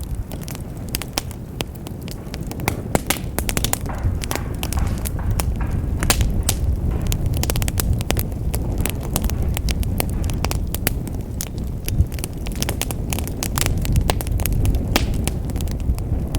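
Wood fire burning in a fireplace: dense, irregular crackles and sharp pops over a steady low rumble of the flames.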